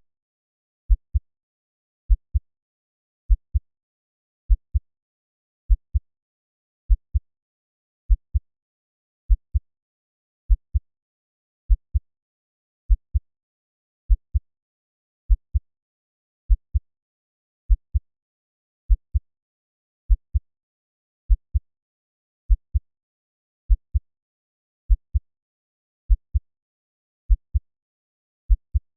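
Slow, steady heartbeat at 50 beats per minute. Each beat is a pair of low thumps in quick succession (lub-dub), repeating about every 1.2 seconds with silence between beats.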